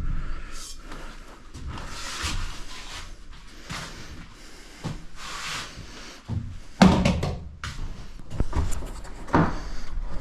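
Rustling and clunking of objects being handled and moved about, with a few sharp thunks; the loudest comes about seven seconds in and another about nine and a half seconds in.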